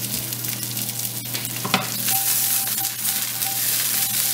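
Cauliflower florets sizzling in hot olive oil in a nonstick frying pan as they brown, a steady fine hiss with two light clicks of the pan, one about a second in and one about a second and a half in.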